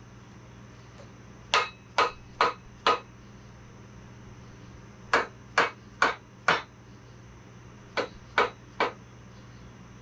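Plastic mallet tapping parts of a Ford 400 engine's bottom end to settle them into place. Three quick runs of three or four sharp taps: about a second and a half in, near the middle, and near the end.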